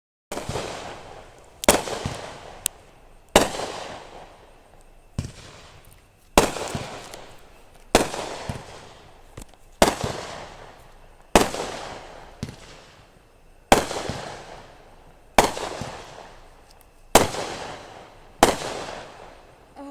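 Fireworks display: aerial shells bursting one after another, a sharp bang every second or two, each trailing off over a second or so before the next.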